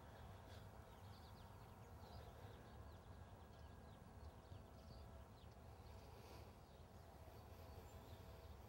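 Near silence outdoors: faint, scattered bird chirps over a low steady hum.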